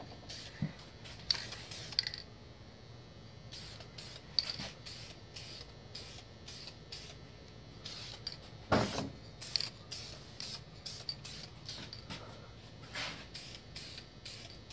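Aerosol can of clear coat sprayed onto a motorcycle helmet in many short hissing bursts, laying down a light tack coat. A louder knock comes about nine seconds in.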